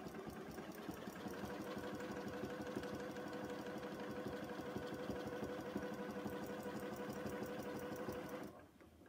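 Janome Memory Craft 6700P sewing machine stitching steadily at speed while quilting with a ruler foot: a fast, even needle rhythm over a steady motor whine. It stops near the end.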